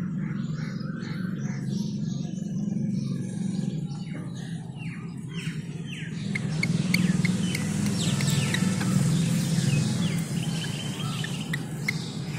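Birds chirping: short high chirps and a few falling calls, busier in the second half, over a steady low hum.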